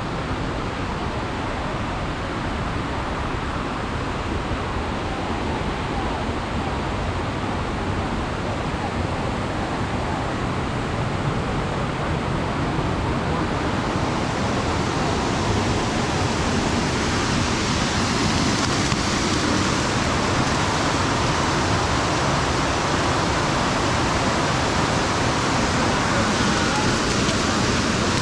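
Waterfall's rushing water, a steady hiss that grows louder and brighter about halfway through.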